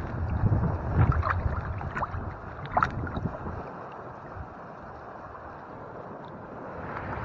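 A hand swishing and rinsing in a shallow rock pool of seawater: water splashing and dripping, with a few small plinking drops in the first three seconds. Wind rumbles on the microphone and dies down after about three seconds.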